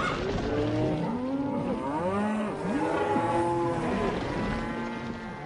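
A herd of cattle mooing, many calls overlapping at different pitches, tailing off slightly near the end.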